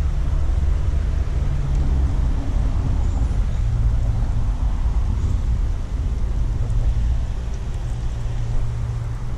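Road traffic rumbling nearby: a steady low engine drone, dropping slightly in pitch about three and a half seconds in.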